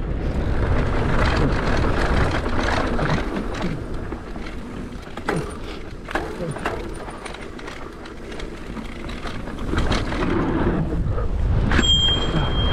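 Mountain bike ridden fast down a dirt trail: wind buffeting the microphone, tyres on dirt and the bike rattling, with repeated knocks over bumps. Near the end a sharp knock is followed by a short high squeal.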